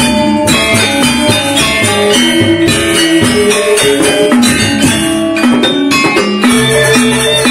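Lombok saron gamelan ensemble playing: struck metallophones and gong-chimes carry a rhythmic melody over a hand-played barrel drum.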